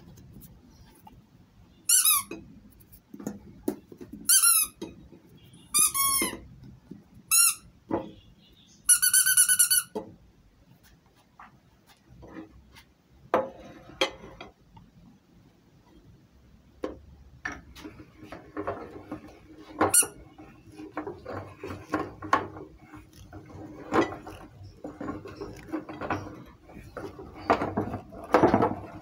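Rubber squeaky toy ducks squeaking five times in the first ten seconds, the last squeak held for about a second. Then a long stretch of irregular clicking and crunching from the meat grinder working.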